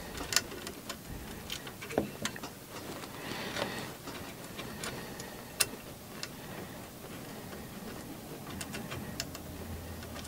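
Irregular light clicks and ticks of small metal screws, nuts and washers being handled and fastened on a 3D printer's aluminum frame, with a few sharper clicks about half a second, two seconds and five and a half seconds in.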